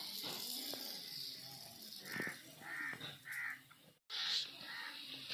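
A crow cawing three times in quick succession, over a steady hiss.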